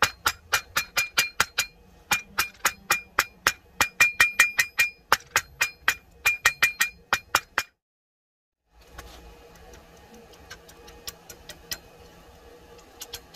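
Hand hammer striking a red-hot 1095 high-carbon steel blade on an anvil, about four to five blows a second in quick runs with short pauses, each blow ringing off the anvil. After a brief cut, the blows are fainter and sparser.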